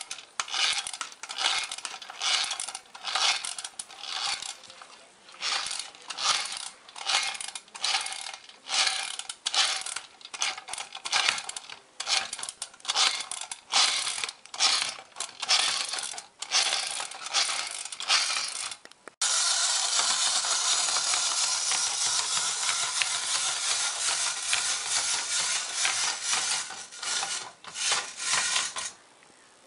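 Tin-toy walking bulldog's clockwork mechanism: a long run of sharp clattering bursts, somewhat under two a second, as the toy steps along. About nineteen seconds in it changes abruptly to a steady whirring of the drive motor, which stops shortly before the end.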